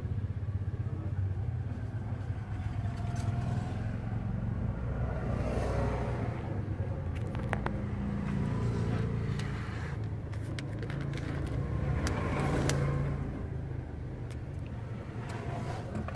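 Steady low rumble that swells and eases, with a few light clicks scattered through it.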